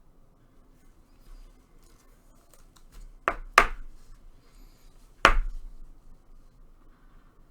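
Three sharp knocks, two in quick succession about three seconds in and a third about two seconds later, over faint rustling and ticking.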